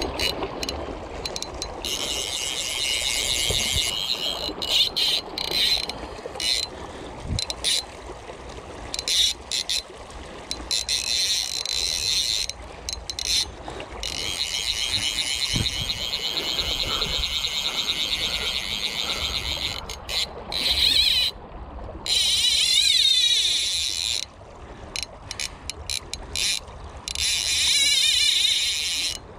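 Click-and-pawl fly reel ratcheting in repeated runs of a few seconds each, as a hooked steelhead takes line and is reeled back during the fight.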